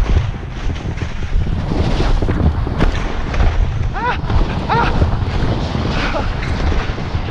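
Wind buffeting the camera microphone while skiing downhill, a heavy low rumble, with the skis scraping over the snow. Two brief pitched calls come about four and five seconds in.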